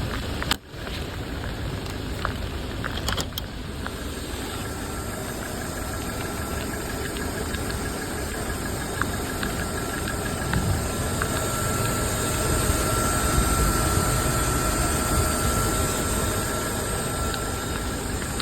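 Ambulance engine idling steadily, with a faint high whine that comes in a few seconds in and holds.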